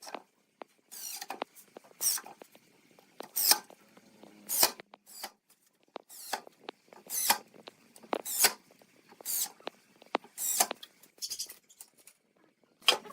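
A series of short rasping strokes, repeated roughly once a second.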